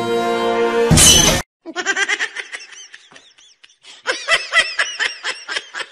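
Orchestral music with drums ends about a second in with a short, loud crash. Then a person laughs in a quick run of giggles.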